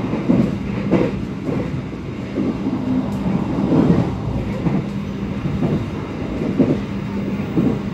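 Passenger train running, heard from inside a stainless-steel INKA coach: a steady hum under a continuous rumble, with irregular knocks from the wheels on the track.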